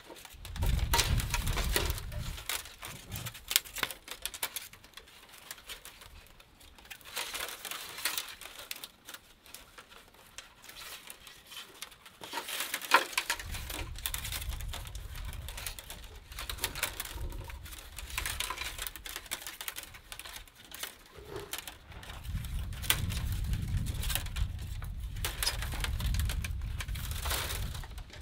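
Thin split-bamboo strips rustling, scraping and clicking against each other as they are threaded by hand into an open-weave basket, in irregular bursts. A low rumble sits underneath at the start and through the second half.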